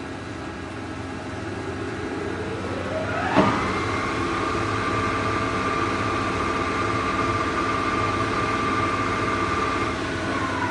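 Monarch 24-by-80-inch engine lathe's headstock gearing and spindle running up to 1020 RPM: a whine rises in pitch, a sharp click sounds about three and a half seconds in, then the whine holds steady. Near the end the pitch starts to fall as the spindle slows.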